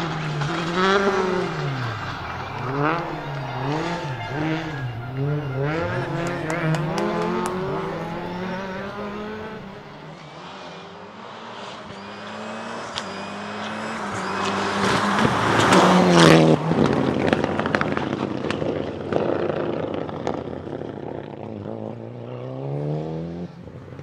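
Rally car engine revved hard on and off, the revs swinging up and down about once a second through a smoky slide, with some tyre squeal. After a lull, a Mitsubishi Galant VR-4 rally car approaches at full throttle and passes loudly about sixteen seconds in, its engine note dropping as it goes by and fades; near the end another engine rises as the next car comes.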